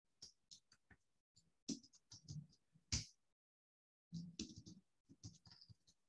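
Faint, irregular clicks and scratching noises, broken by a brief stretch of dead silence.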